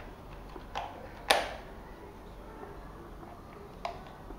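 Hard plastic of a Syma X8C quadcopter's body clicking and knocking as it is handled: a few short clicks, the loudest about a second in.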